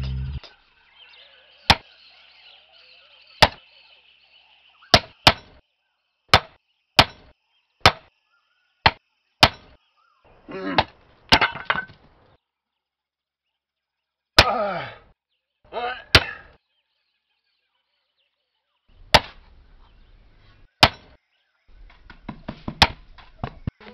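Cartoon sound effects of wooden knocks, sharp single blows about one a second at first. Around the middle come a few longer noisy strokes, and a cluster of lighter knocks near the end.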